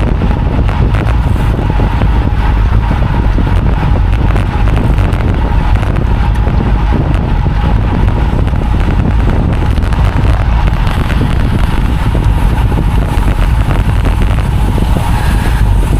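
Steady, loud rush of wind on the microphone of a camera carried on a road bike riding at speed.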